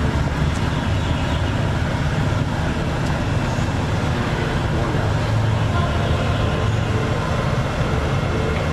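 Jeep Cherokee Trailhawk driving slowly along an off-road trail: a steady low engine and drivetrain rumble with tyre and road noise.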